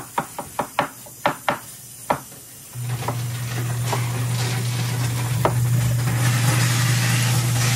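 About eight sharp, irregular knocks of a cooking utensil over the first two seconds, then a steady low hum with meat sizzling on a griddle, the hiss growing louder toward the end.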